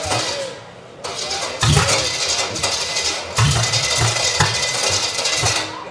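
Small-block Chevy V8 on an engine stand cranking on its starter from about a second in, sputtering with irregular low thumps without settling into a run, then cutting off shortly before the end. This rough, uneven running is the sign of a firing-order mistake, which by the look of it is the cause.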